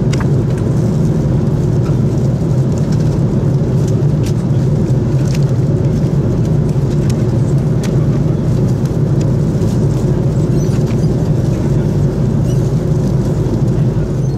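Steady low drone of an Airbus A330-300 cabin in flight, from its Rolls-Royce Trent 772B engines and the airflow, with a few faint rustles of magazine pages being turned.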